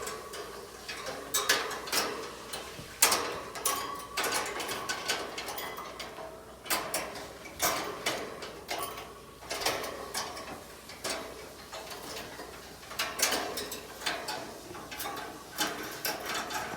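Irregular clicks, knocks and rattles of parts being fitted together by hand, most likely on the bird's cage.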